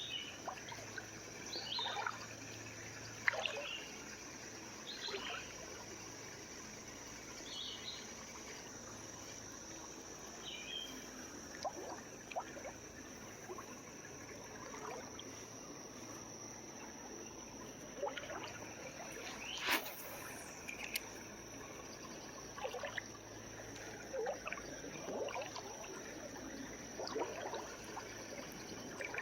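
A small creek trickling and burbling in short irregular spurts, under a steady high-pitched insect drone that runs on without a break.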